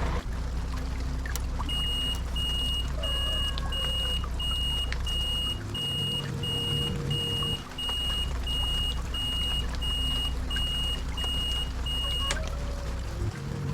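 Coach bus engine running with a steady low rumble, its note shifting briefly in the middle. Over it, a repeated electronic beep sounds about one and a half times a second for some ten seconds, then stops.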